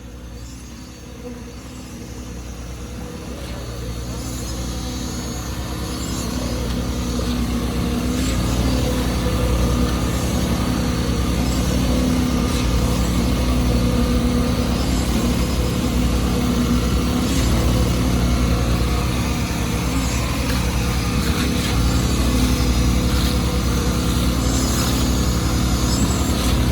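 A heavy engine running, growing louder over the first several seconds and then holding steady.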